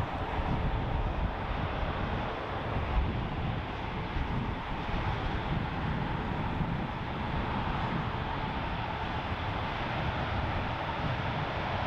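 Jet airliner engines running steadily, with a faint held whine over the noise, and wind rumbling on the microphone.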